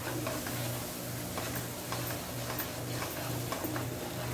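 Spatula stirring spices frying in a non-stick wok, with soft ticking clicks as it knocks and scrapes the pan over a light sizzle. A faint low hum pulses underneath about three times a second.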